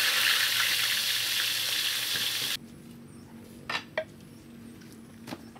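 Whole fish deep-frying in a wok of hot oil: a loud, steady sizzle that cuts off suddenly about two and a half seconds in. A few faint clicks follow.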